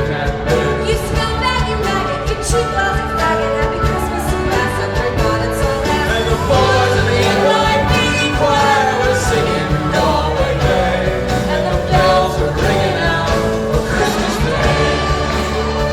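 A live rock band playing, with singing over the band.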